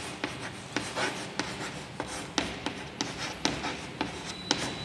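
Chalk writing on a chalkboard: a quick, irregular run of taps and short scratchy strokes as a word is written.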